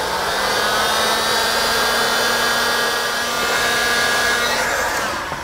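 Handheld electric heat gun blowing steadily, a fan-motor hum with a rush of hot air, as it shrinks a low-temperature solder heat-shrink connector over a twisted wire splice. It fades out near the end.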